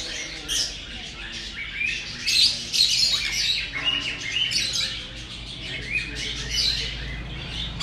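Long-tailed macaques screaming and squealing: repeated short, high-pitched calls in bunches, the sound of a troop squabbling during a chase.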